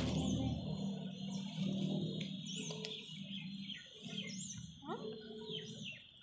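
Labrador puppy whining: a short cry about five seconds in that rises steeply and then holds steady. Small birds chirp now and then in the background.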